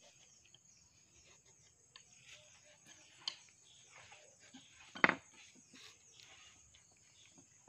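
Hand wood carving: a chisel working a wooden panel with scattered light taps and scrapes, and one sharp knock about five seconds in.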